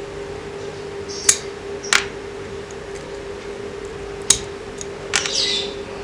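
Four sharp clicks, the last followed by a short scrape, as a small diecast metal toy car is handled and turned over in the fingers. A steady hum runs underneath.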